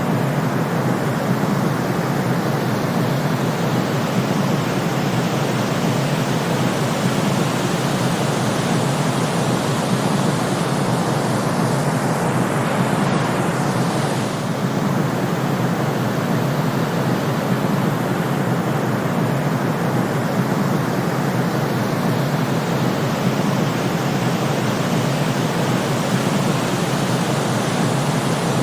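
Steady generated white noise for sleep, an even deep hiss with no rises or swells, its loudness dipping slightly for a moment about fourteen seconds in.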